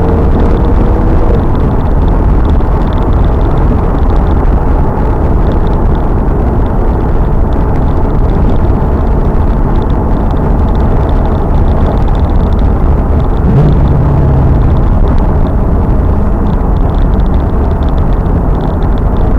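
Heavy wind buffeting and road rumble on the microphone of a car at speed on track. The 2000 Pontiac Trans Am Firehawk's LS1 V8 is heard faintly beneath it, its pitch rising and falling with the revs.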